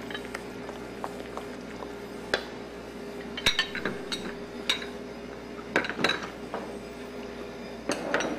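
Kitchen bowls, plates and utensils clinking and knocking against each other and the counter: a scattered series of sharp clinks, bunched around the middle and again near the end, over a steady hum.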